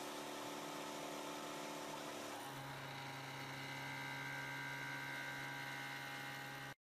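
Small CNC milling machine running, its spindle and cutter milling a brass part: a steady machine hum with several held tones. About two and a half seconds in, the tones shift to a stronger, lower hum with a higher whine above it. The sound cuts off suddenly near the end.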